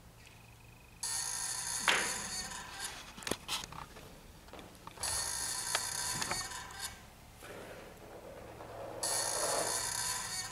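Improvised sound effects made by scraping, rubbing and knocking stage props, picked up on radio mics and layered through a loop station into a sea-and-ship soundscape. A noisy rushing texture with clicks and knocks cuts in and out about every four seconds as the loop repeats.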